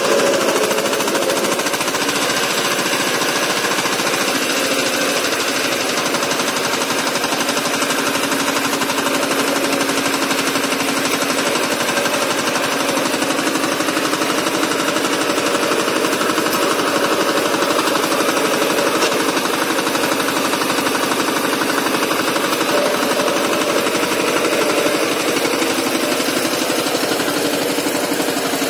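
Walk-behind power tiller's single-cylinder diesel engine running steadily under load while its rotary blades till soil.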